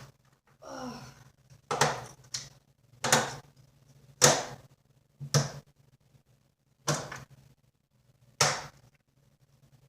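Fridge magnets being stuck onto and pulled off a refrigerator door: about seven sharp clacks, one at a time, roughly a second apart.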